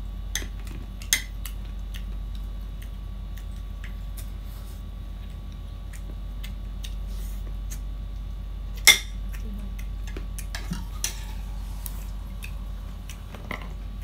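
A few sharp clinks of cutlery and china plates during a meal, the loudest about nine seconds in, over a steady low hum.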